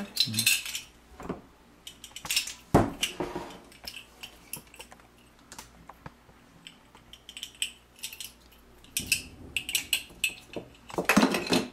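Kitchenware clinking and tapping as salt is measured out of a glass jar beside a stainless steel mixing bowl: scattered sharp clinks and knocks, with louder clusters about half a second in, near three seconds, and in the last few seconds.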